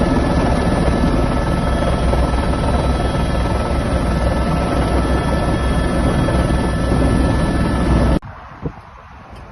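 Helicopter running close by, its turbine and rotor loud and steady with a thin high whine over fast rotor pulsing. The sound cuts off abruptly about eight seconds in, leaving a much quieter background.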